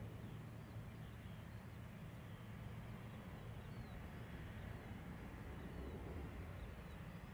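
Faint, steady low rumble of a Boeing 777-300ER's GE90 engines at taxi power as it lines up on the runway, with small birds chirping about once a second.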